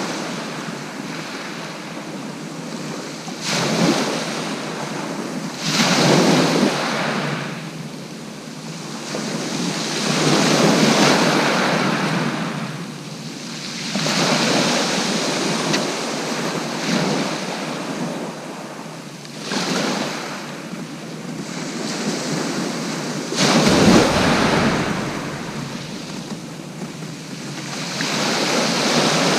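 Sea waves breaking on the shore, a surge swelling and washing back every four to five seconds, with wind buffeting the microphone for a moment about two-thirds of the way through.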